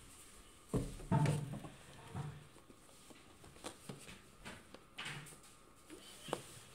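Cats knocking about in and against a cardboard box: a cluster of dull thumps about a second in, then scattered lighter knocks and scuffs.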